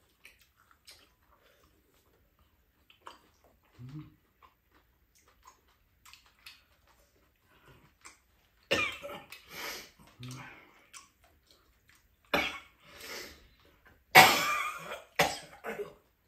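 An older woman coughing in four bouts, starting about nine seconds in, the loudest near the end.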